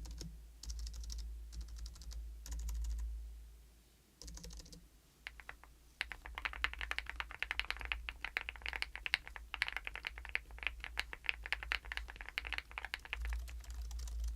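Keys of a Hansung GK698 OfficeMaster low-noise pantograph (scissor-switch) keyboard being pressed: a few separate presses of its larger stabilized keys at first, then fast, dense tapping from about six seconds in.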